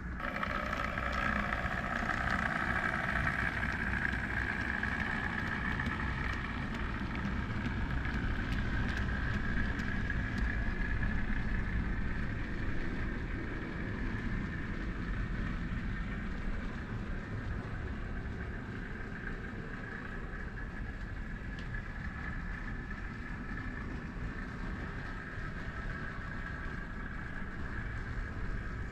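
Model railway diesel locomotive running along the layout, a steady hum with a higher whine that eases off a little about halfway through.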